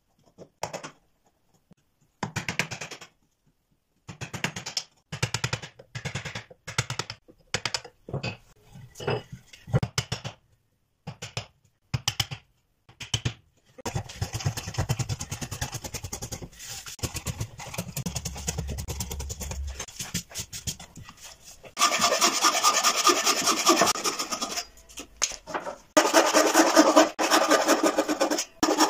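Hand tools working wood: a chisel driven with a hammer in short separate bouts, then a chisel paring across a board in a steady scrape, and from about two-thirds of the way in a frame saw cutting in quick rhythmic strokes, the loudest part.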